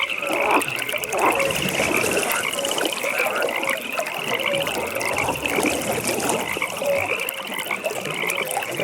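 Chorus of many frogs calling: overlapping croaks, with a fast, high pulsed trill that rises slightly and repeats about every two seconds.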